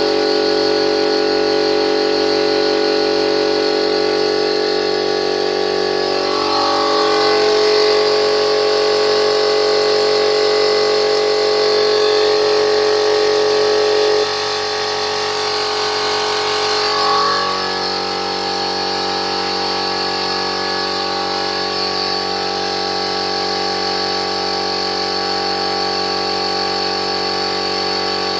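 Aldi oil-lubricated piston air compressor running steadily. Its pitch dips slightly about six seconds in and comes back up about seventeen seconds in.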